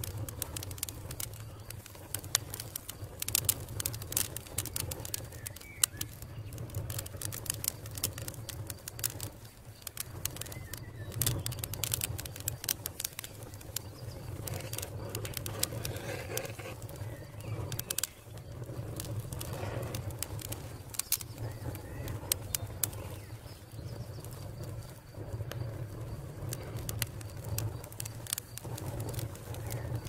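Wood fire crackling, with irregular sharp pops and snaps over a steady low rumble.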